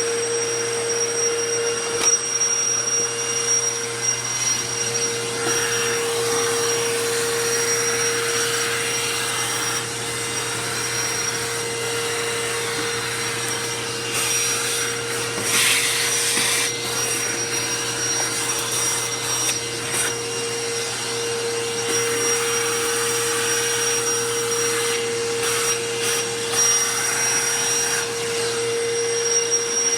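Royal ProSeries Quick Rewind vacuum cleaner running steadily, its motor holding one whining pitch over a rush of air. The airflow swells now and then, loudest about halfway through.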